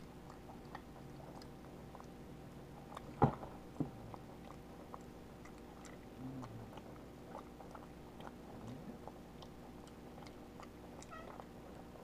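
Java macaque chewing pot roast with her mouth and cheek pouches packed full: faint wet mouth clicks and smacks, with one sharper click about three seconds in.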